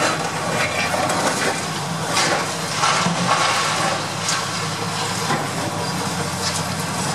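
High-reach demolition excavator breaking up a concrete silo: its diesel engine runs steadily under the continuous crunching of concrete being crushed and debris falling, with a few sharper cracks about two, four and five seconds in.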